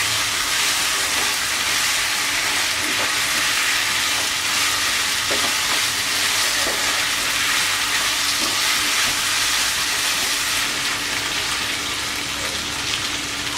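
Chicken pieces sizzling steadily in hot mustard oil and spice paste in a frying pan as they are stir-fried (kosha) and stirred.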